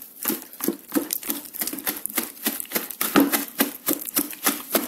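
Coiled-wire hand masher pounding and stirring margarine, sugar and eggs in a mixing bowl: a rhythmic run of soft knocks and scrapes, about three strokes a second, as the wire hits the bowl and the mixture.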